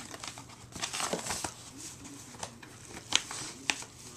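Packaging and items being handled: rustling with a few sharp clicks or taps, the loudest a little past three seconds in.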